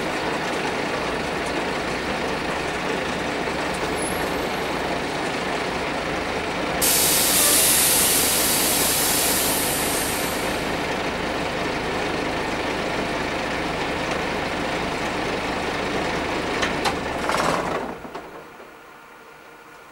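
Karosa C934 city bus with its Renault MIHR diesel engine idling while standing. About 7 s in, a loud hiss of compressed air from the air-brake system lasts some three seconds. Near the end, after a couple of clicks, the engine shuts off and its noise dies away.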